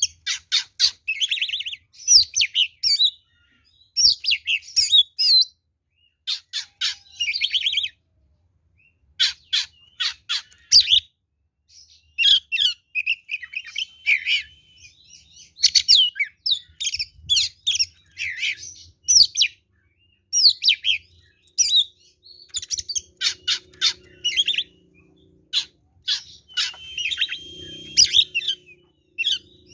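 Oriental magpie-robin (kacer) singing loud, combative full song: varied phrases of fast repeated sharp notes, trills and whistles, broken by short pauses.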